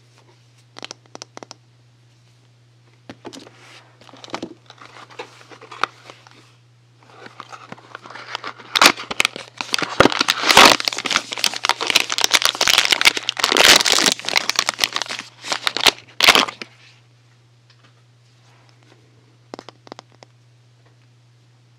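Soap packaging unwrapped by hand, crinkling and tearing. A few light clicks come first, then a soft rustle, then a long, loud stretch of dense crinkling in the middle, and a few more clicks near the end.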